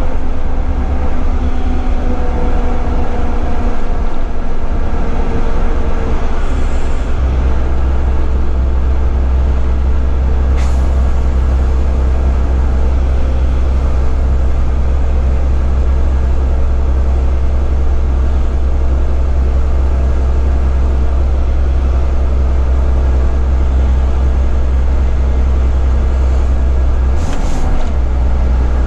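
Inside the cab of a Volvo FH12 480 truck under way: the straight-six diesel drones steadily under the road and tyre noise. A brief sharp sound comes about ten seconds in, and near the end the engine drone briefly drops with another short sharp sound.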